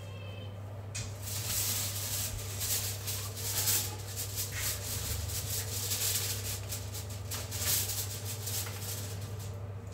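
Aluminium foil crinkling and rustling in quick, irregular crackles as it is handled over a dish, starting about a second in, over a steady low hum.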